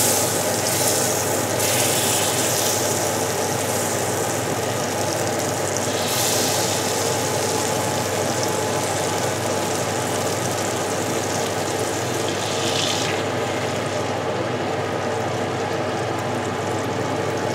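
Butter sizzling as it melts and foams in a stainless-steel pan, a steady hiss with a few brief louder spells.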